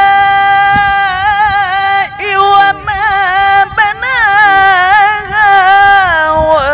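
A male Quran reciter's voice chanting in a drawn-out, melodic mujawwad style. He holds long high notes decorated with wavering melismatic turns, breaks briefly about two seconds in, and slides down in pitch near the end.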